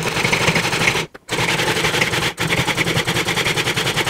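Cuisinart Pro Classic food processor pulsing, its motor running and blade chopping raw vegetables with a fast rattle. The pulse is released briefly about a second in and again for a moment a little past two seconds, then the motor runs on.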